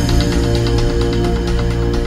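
Background music with sustained low notes and a steady beat.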